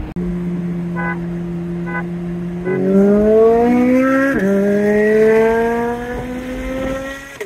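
Twin-turbocharged C8 Corvette's 6.2-litre V8, heard from inside the cabin. It holds a steady note, then goes to full throttle about a third of the way in: the pitch climbs, drops once at an upshift a little past halfway, and climbs again.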